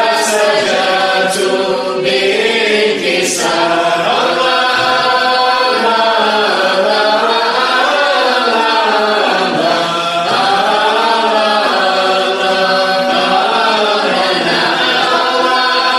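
A group of voices chanting a Sufi qasida together in dhikr: one slow melodic line in long rising and falling phrases, sung steadily throughout.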